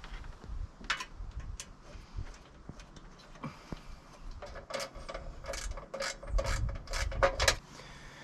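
Hand tools clicking and scraping as screws are driven to mount a mower's kill switch, with a denser run of sharp clicks from about halfway in.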